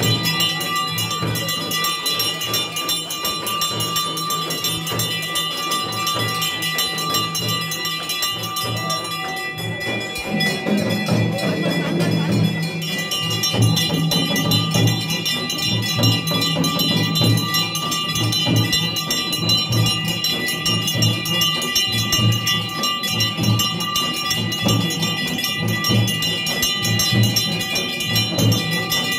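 Temple devotional music: bells ringing steadily over a drum beating about twice a second, with jingles like a tambourine.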